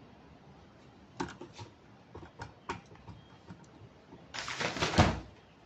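Transparent PVC umbrella being handled: a few light clicks and crinkles from the plastic canopy and frame, then, about four seconds in, a short rush of crinkling PVC that ends in a sharp snap as the umbrella is pushed open and its frame locks.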